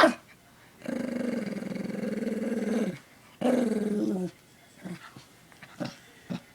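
A dog vocalising in reaction to an ultrasonic dog whistle that people cannot hear. There is a long drawn-out growling call of about two seconds, then a shorter one that drops in pitch at its end, followed by a few small snuffs or clicks.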